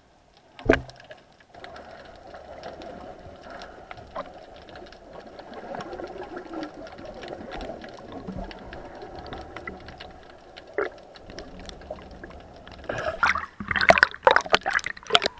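Water heard through an underwater camera: a steady muffled wash with scattered faint clicks, a short thump about a second in, and loud splashing near the end as the camera breaks the surface.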